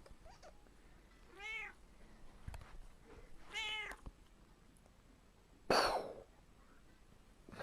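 A cat meowing twice, each meow rising and falling in pitch, about two seconds apart. About six seconds in comes a short, louder hissing burst of noise.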